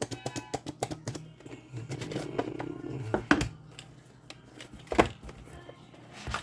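A cardboard mailing package being cut and opened by hand: irregular clicks, knocks and rustling of cardboard and packing, with a scraping stretch about two seconds in and two sharp knocks, the second the loudest, about three and five seconds in. A faint steady low hum runs underneath.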